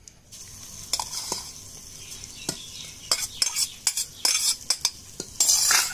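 A metal spoon clicking and scraping against steel as a tempering of oil, mustard seeds, cumin and curry leaves is tipped from its pan onto coconut chutney in a steel bowl. A run of sharp clicks is followed by a louder rasping rush near the end.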